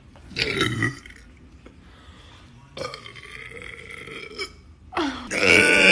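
A person burping: a short burp about half a second in, a longer, quieter one from about three seconds, and a long, loud burp near the end.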